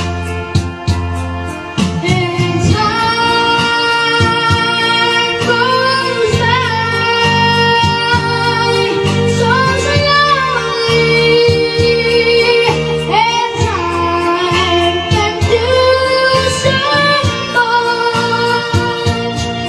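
A high voice singing long, held notes that bend and waver in pitch, over a steady instrumental backing with a low bass line.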